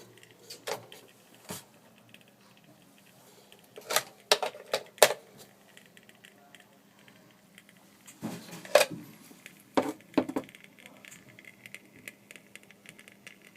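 Double wall socket crackling with irregular sparking snaps: sharp clicks in uneven clusters, then a fainter, finer crackle near the end. This is typical of arcing inside the socket, even though a plug-in socket tester shows no fault.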